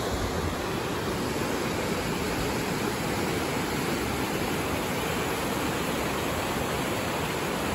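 A mountain stream rushing over boulders, a steady, even roar of whitewater.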